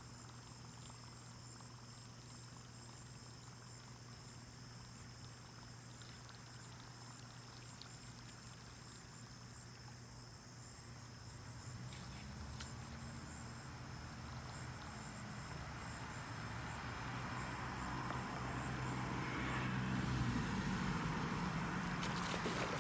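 Steady high trilling of insects over a low steady hum. A rumbling noise swells louder through the second half, and a burst of sharp splashing strokes comes near the end, where a hooked fish thrashes at the surface by the bank.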